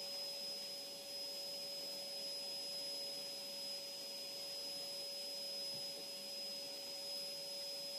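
Steady background hiss with two faint steady tones, one low and one high, unchanging throughout.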